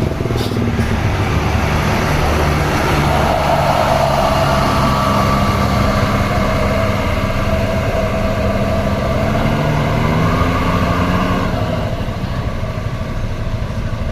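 Road vehicle engine running steadily with road noise, a continuous drone that strengthens a few seconds in and eases off slightly near the end.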